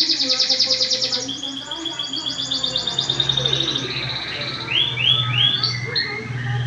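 Domestic canary singing a long roll: a fast trill of rapidly repeated high notes that runs on and drops lower in pitch, then about five seconds in three slower notes that each sweep downward. It is the kind of long-roll song played to prompt reluctant canaries to sing.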